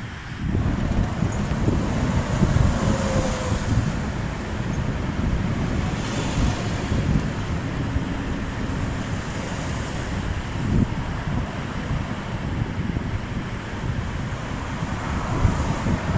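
Wind buffeting the microphone: a steady gusty rush, heaviest in the low end.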